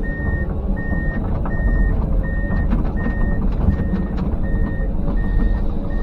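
Backup alarm beeping steadily, about one beep every three-quarters of a second, over a diesel engine running. Sharp cracks and knocks sound through it.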